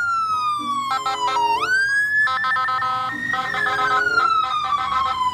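Electronic ambulance siren wailing: its pitch slides slowly down, snaps back up about a second and a half in, then slides down again. Background music with short electronic notes plays throughout.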